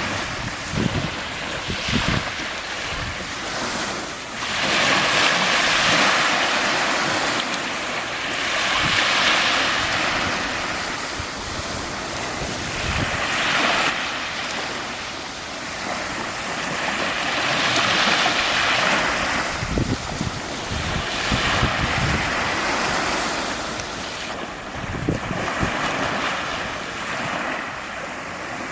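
Sea of Azov waves washing onto the shore, the surf swelling and fading every few seconds, with wind buffeting the microphone.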